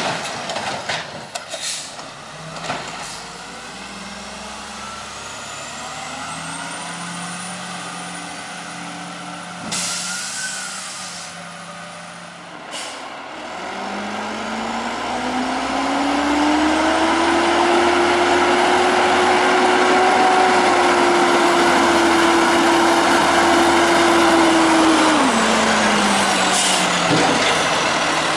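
Heavy diesel garbage trucks. First an automated side loader runs at the curb, with clanks from its arm and a cart and a hiss of air about ten seconds in. Then a Peterbilt 320 refuse truck accelerates toward the listener with its engine revving up and holding high, growing louder, before dropping off near the end as it slows and stops.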